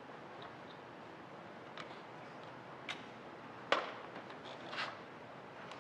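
A few sharp, separate clicks and taps from handling the wiring and metal parts at the condenser's terminal block, the loudest a little past halfway, over a faint steady hiss.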